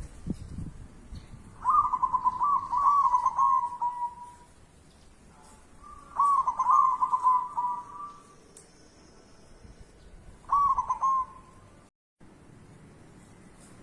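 A dove cooing in three bouts of quick, rolling notes, the first two long and the last short. There is a low thump at the very start.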